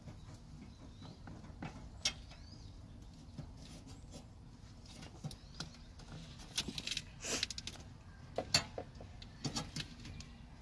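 Scattered sharp clicks and small plastic-and-metal rattles as hands work the orange high-voltage cable connector on a hybrid battery pack. A single click comes about 2 s in, and the clicks come thickest in the second half.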